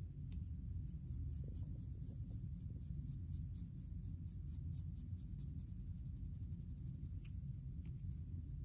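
Comb teeth scraping through short, wavy hair over a dry, flaky scalp in quick repeated strokes, loosening dandruff flakes, over a steady low rumble.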